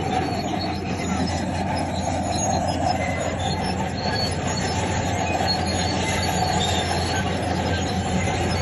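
Bulldozer running steadily, its steel crawler tracks squealing and clattering as it moves, with short high squeaks scattered over a constant engine hum.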